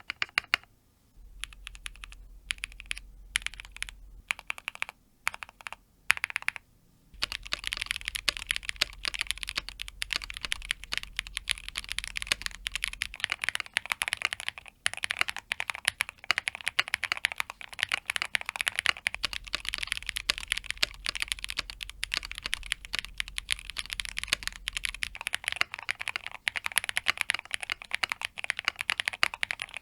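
Everglide SK68 mechanical keyboard with Zaku switches and Akko PBT keycaps being typed on. Single keystrokes come at uneven intervals for the first several seconds, then give way to fast, continuous typing.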